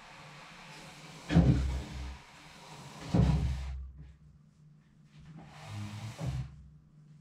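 A chair knocking and scraping across the floor as it is moved: two loud bumps with a scrape after each, about a second and three seconds in, then a fainter scrape around six seconds, over a faint steady hum.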